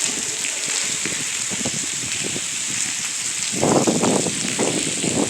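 Steady rain-like hiss of water dripping and running, with irregular splashes of footsteps through shallow water, loudest in a cluster a little past halfway.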